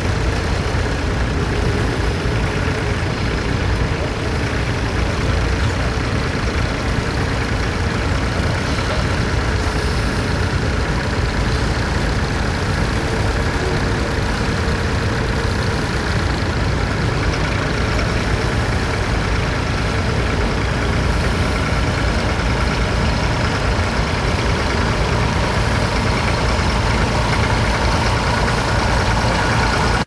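Vintage tractor engine running steadily under load while pulling a plough through the field.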